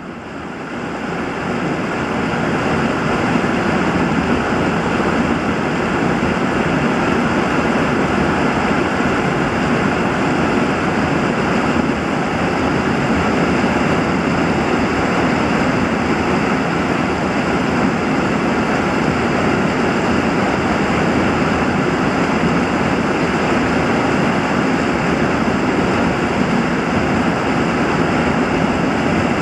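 Rushing, churning water: a steady roar that fades in over about the first two seconds and then holds even.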